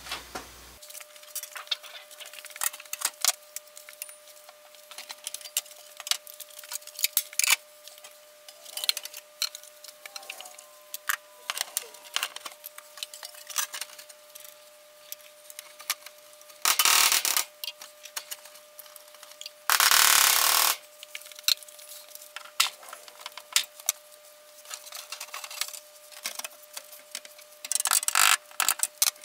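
Scattered clicks, taps and clatter of tools and metal signs being handled and hung on a plywood shop wall. Two short, loud bursts of noise come past the middle, and a faint steady hum runs underneath.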